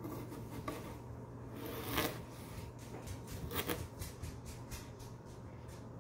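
Kitchen knife cutting into the rind of a small whole watermelon: a few short scraping strokes, the loudest about two seconds in and another at about three and a half seconds.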